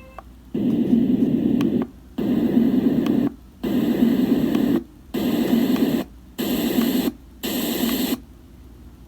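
Unite Stone white noise machine playing a pulsing noise setting: six bursts of steady hiss, each about a second long with short gaps between, the last few a little shorter.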